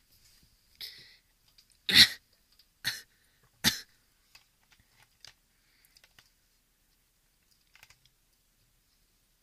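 A person forcing short, sharp sounds from the throat after gulping carbonated cider. First comes a faint one, then three abrupt bursts about a second apart, the first of these the loudest.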